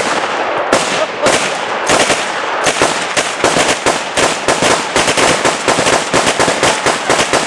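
Rapid gunfire from several guns: a few spaced shots at first, then a steady stream of about three to four shots a second, fired at a compressed-air tank target.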